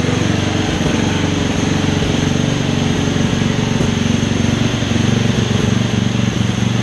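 1996 Craftsman lawn mower's small engine running steadily at a constant speed.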